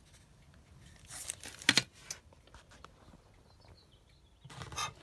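Rustling and crackling of a plastic-bagged outlet wall plate being handled, with a sharp crackle about a second and a half in and more rustling near the end.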